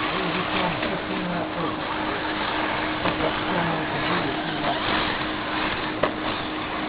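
Battery-powered RC short-course trucks racing on a dirt track: their motors whine, rising and falling in pitch, over the noise of tyres on dirt. A single sharp knock comes about six seconds in.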